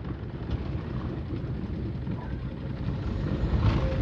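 Car driving on a dirt road, heard from inside the cabin: a steady low rumble of engine and tyres that grows a little louder about three and a half seconds in.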